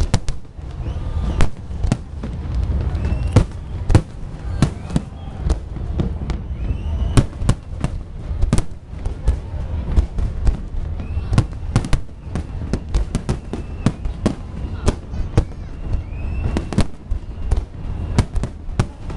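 Fireworks display going off overhead: dense, irregular sharp bangs, several a second, over a steady low rumble.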